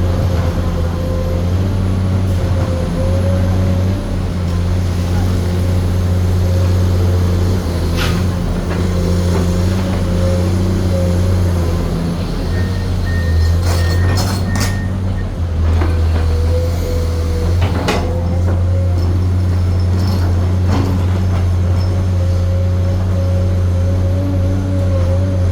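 Komatsu PC210 hydraulic excavator running steadily, its engine drone under a wavering hydraulic whine. A few sharp knocks stand out: one about a third of the way in, a cluster just past halfway, and another about three quarters in.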